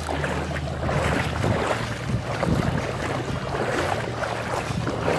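Wind buffeting the microphone over shallow sea water lapping, with a low steady hum underneath.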